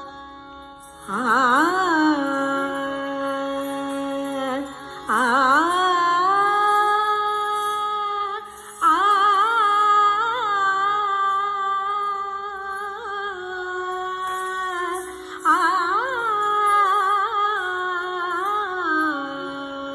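Hindustani classical accompaniment for Kathak dance: slow, heavily ornamented melodic phrases from voice and sarangi over a steady drone, with new phrases entering about one, five, nine and fifteen seconds in.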